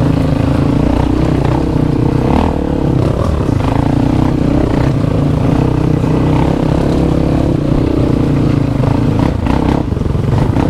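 Dirt bike engine running steadily under load while riding an off-road trail. A few knocks come through about two seconds in and again near the end.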